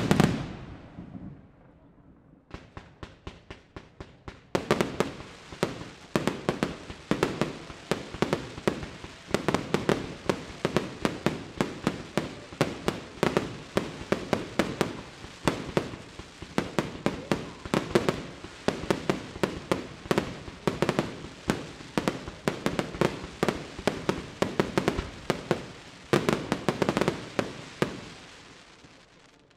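Fireworks display: one big shell burst at the start, then from about four seconds in a rapid barrage of bangs and crackle, several a second, which dies away near the end.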